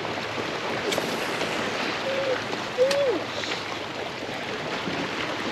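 Steady rush of water and wind around a small fishing boat, with no motor to be heard. A sharp knock comes about a second in and another near three seconds, and two short falling vocal sounds come between two and three seconds.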